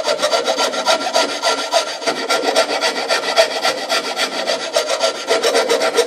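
Square file rasping back and forth through a drilled hole in a wooden board in quick, steady strokes, squaring off the round hole.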